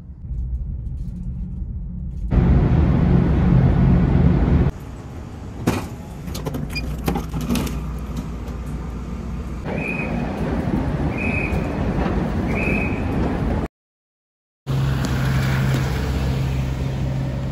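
A run of changing background sounds: a low steady hum and rumble of machinery, scattered clicks and knocks, three short electronic beeps about a second and a half apart, a one-second cut to silence, then road traffic.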